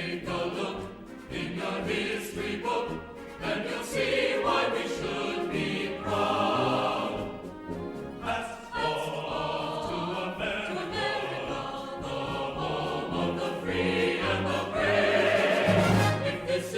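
Background music with a choir singing over orchestral backing.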